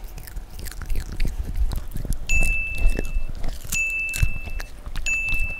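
Small dog chewing and licking bacon from a person's fingers right at the microphone: a run of wet smacks and crunchy clicks. Three steady high electronic beeps, each about a second long, sound over it from a little past two seconds in.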